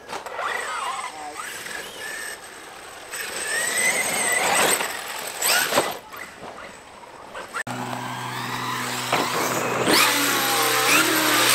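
Large electric RC truck's motor whining as it revs up and down, the pitch rising and falling, with several sharp knocks as the truck hits the dirt and lands jumps.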